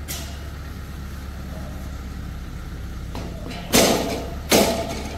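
A vehicle engine idling with a steady low hum. Near the end come two loud sharp bangs, a little under a second apart.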